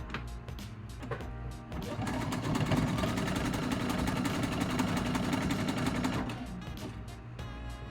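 Sewing machine running a tight zigzag stitch. It starts about two seconds in, runs steadily for several seconds and eases off near the end, over background music.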